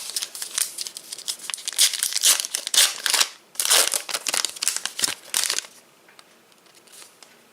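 Foil wrapper of a Topps Turbo Attax trading card pack crinkling as it is torn open and handled. The crackling runs for about five and a half seconds, then dies down to faint rustling.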